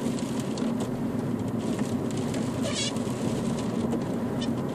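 Car driving, heard from inside the cabin: a steady low engine and road hum. A brief high warbling squeak comes about halfway through.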